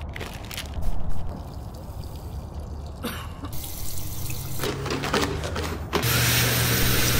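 Water trickling in a small tiled room, turning into a louder steady rush of running water for the last second or so. A brief low thump comes about a second in.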